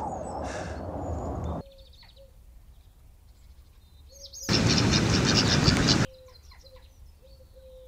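Loud battlefield noise that cuts off suddenly about a second and a half in, giving way to birds chirping quietly in a garden. A loud rushing burst about a second and a half long breaks in around the middle.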